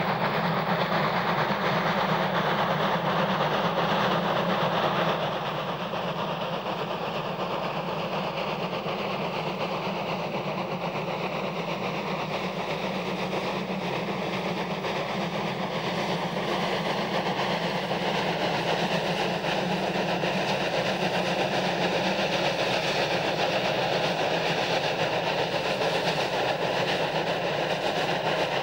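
DR class 44 three-cylinder steam freight locomotive working hard under a heavy load: a steady, dense rush of exhaust and train running noise, a little quieter from about five seconds in.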